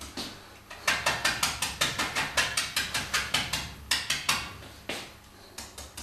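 Paintbrush tapping and dabbing paint on a hand-held artist's palette: a quick run of light taps, about five a second, starting about a second in and thinning to a few scattered taps after about four seconds.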